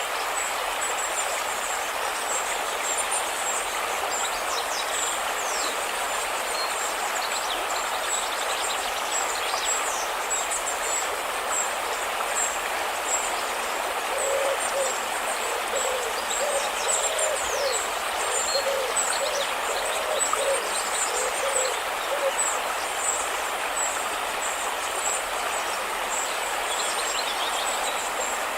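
River water rushing steadily, with small birds chirping high and thin throughout. About halfway through, a run of a dozen or so short low calls repeats for several seconds.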